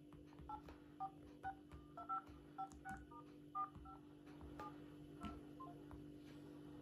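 Touch-tone key beeps from smartphones' in-call keypads as digits are tapped in during calls: a string of about eighteen short beeps at an irregular pace, stopping about five and a half seconds in.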